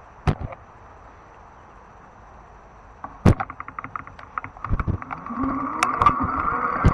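Fat-tire electric bike getting under way: a sharp click, then a loud knock and a quick run of ticks, then the electric motor's whine rising and growing louder as the bike picks up speed, with knocks from the bike over rough ground.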